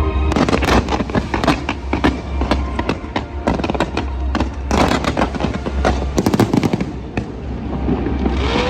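Fireworks going off in dense crackling volleys, many sharp pops a second, thinning out about seven seconds in.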